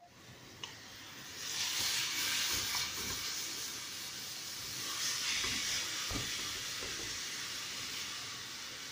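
Ground chicken sizzling in a frying pan over a gas burner: a steady frying hiss that swells about a second and a half in, with a few dull bumps.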